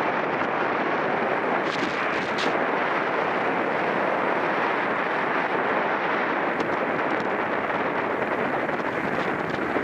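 Steady rush of wind buffeting the microphone while riding at speed in a bike race, with a few faint rattles about two seconds in and again near seven seconds.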